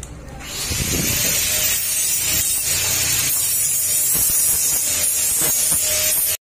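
Stick (shielded metal arc) welding on the corner joint of a steel square-tube frame. The arc gives a steady, sizzling hiss that starts about half a second in and cuts off suddenly just before the end.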